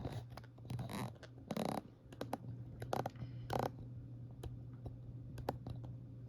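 Hands handling small objects on a work surface: scattered clicks, taps and short scraping rustles, over a steady low hum.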